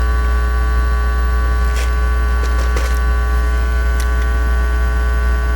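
Loud, steady electrical mains hum with a buzz of steady higher tones over it, and a few faint clicks.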